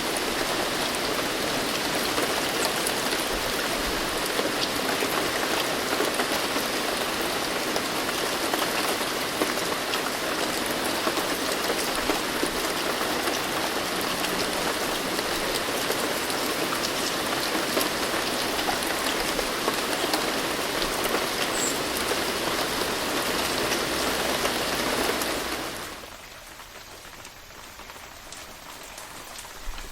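Steady rain falling, a dense patter of many drops. About 26 seconds in it drops abruptly to a much quieter, lighter rain.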